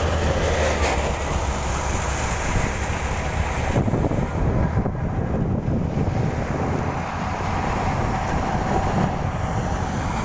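Harvesting machinery running: a steady engine rumble with wind blowing across the microphone.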